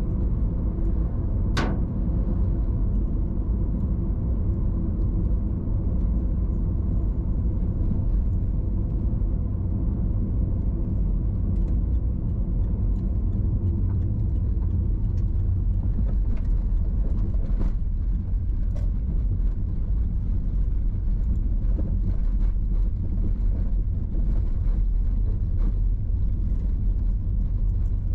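Car driving: a steady low rumble of engine and tyre noise on the road, with a few short clicks or knocks, one sharp one about a second and a half in.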